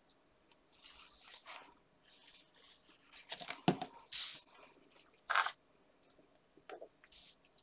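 Sheets of card stock being handled, slid and pressed together on a cutting mat: scattered rustling and scraping swishes, loudest around the middle, with one sharp knock.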